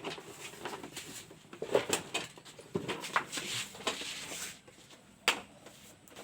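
Scattered clicks and knocks with some rustling as plastic motorcycle body parts and wiring are handled and fitted back into place, with two sharp knocks standing out.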